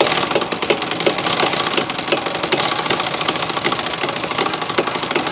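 Pneumatic impact wrench hammering continuously at a fast rattle, spinning off a seized nut that has been heated to free it.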